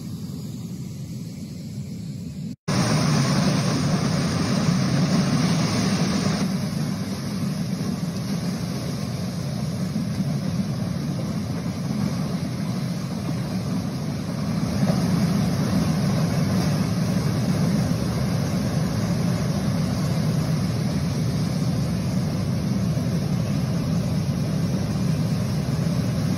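Mudslide debris flow rushing past, a steady deep rushing noise. It is quieter at first, cuts out for an instant about two and a half seconds in, and comes back louder.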